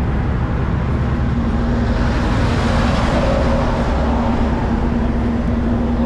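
Steady low rumble of heavy trucks' diesel engines and traffic, with a steady hum coming in about a second in and a swell of road noise from about two to four seconds in, as of a vehicle passing.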